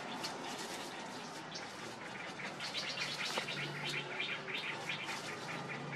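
Puppies play-growling and mouthing at an adult dog while wrestling, a wet, gargling sound, with a rapid chatter of short high sounds from about halfway through.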